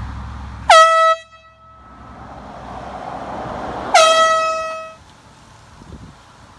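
Air horn blown twice: a short blast about a second in, then a longer blast of about a second near the middle. Each blast opens with a quick drop in pitch and then holds a steady, shrill tone.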